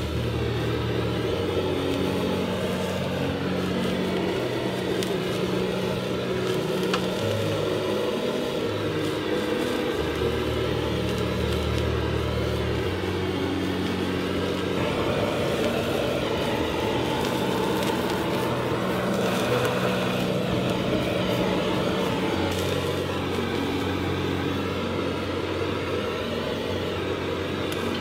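Background music with a stepping bass line, over a steady dense crackle typical of noodles and vegetables sizzling as they are stir-fried in a wok.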